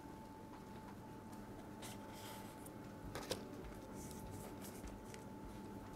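Quiet handling of a small cardboard box with a foam insert: a few soft rustles and taps, the clearest about three seconds in, over a faint steady tone in the room.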